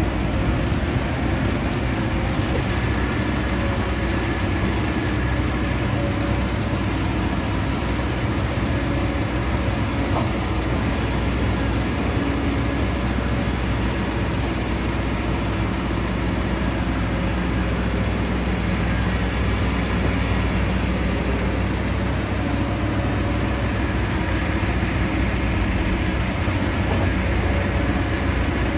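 Excavator running steadily at work: an even, unbroken low engine drone that holds the same level throughout.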